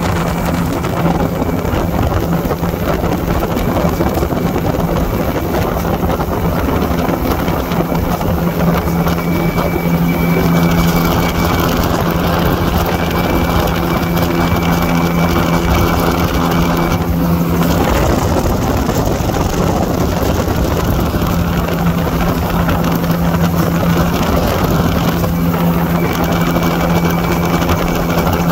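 Small aircraft's engine droning steadily inside the cabin, a constant low hum over a rush of air. The hum fades briefly a little past halfway through, then comes back.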